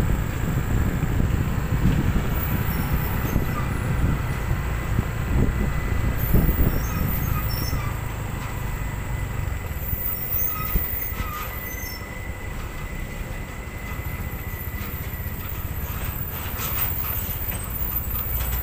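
Heavy truck driving past on the road, a low engine and tyre rumble loudest in the first half that eases off after about eight seconds, with a thin steady high whine alongside.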